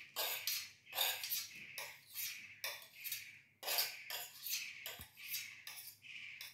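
Steel spoon scraping and clinking against a stainless steel thali while scooping chopped onion, a quick run of short metallic scrapes about two or three a second.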